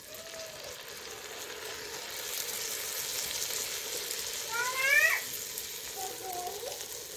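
Hot ghee sizzling in a clay pot as wet blanched spinach is dropped by hand onto the fried potatoes and masala; the sizzle swells over the first couple of seconds, then holds steady. A brief rising cry cuts in about five seconds in and is the loudest sound.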